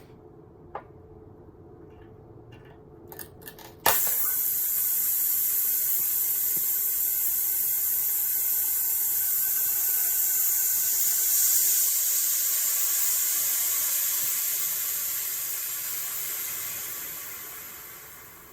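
A few small clicks, then a sharp snap about four seconds in as the CRT picture tube is opened, followed by a loud steady hiss of air rushing into the evacuated tube. The hiss fades away over the last few seconds as the vacuum fills and the tube becomes safe.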